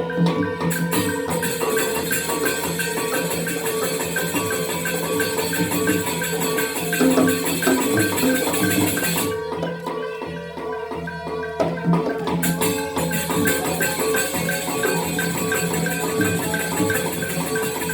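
Balinese gamelan playing dance accompaniment: bronze metallophones ring out fast interlocking strikes over steady gong and drum tones. The high shimmering layer of cymbals drops out for about three seconds in the middle, then returns.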